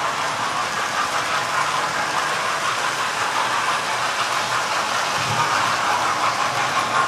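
Model trains running on a layout: a steady whirr of small electric locomotive motors and wheels running along the track.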